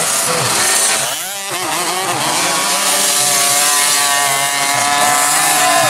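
Two-stroke 50cc mini motocross bike engine revving hard; about a second in the throttle drops off briefly and the pitch swoops back up, then the engine holds a steady high pitch.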